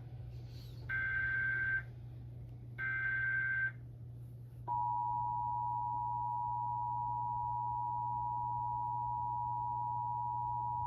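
Emergency Alert System SAME header: two one-second bursts of digital data tones with a short pause between them, then from about halfway a steady two-tone EAS attention signal (853 and 960 Hz sounded together), the signal that announces an emergency alert.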